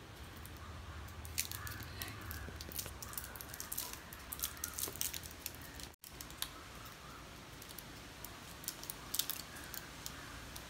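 A small child's fingers crinkling and picking at a plastic chocolate wrapper: faint, scattered crackles.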